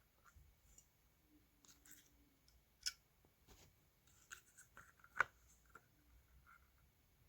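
Small metal parts of a vacuum cleaner motor being handled during disassembly: faint scrapes and light ticks, with two sharper clicks about three and five seconds in, the second the louder.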